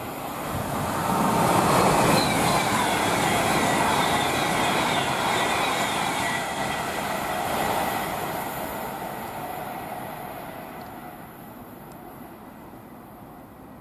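Avanti West Coast Class 390 Pendolino electric train passing at speed. Its rushing noise swells to a loud peak about two seconds in and carries a faint falling whine as it goes by, then fades away over the last few seconds.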